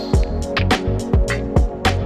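Background music with a steady drum beat, a hit roughly every half second over sustained tones.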